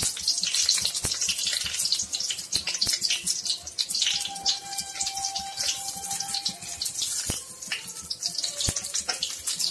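Hot oil sizzling and crackling in a kadhai as masala-stuffed brinjals fry on a low flame, with a couple of soft knocks as more brinjals are set in the pan.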